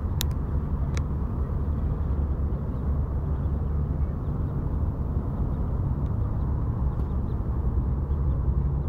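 Steady low outdoor rumble, with two faint clicks about a second in.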